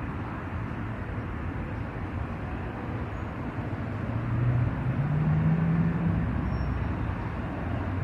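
Low rumble of motor traffic, with one vehicle's engine note growing louder about four seconds in, rising slightly in pitch, then fading away.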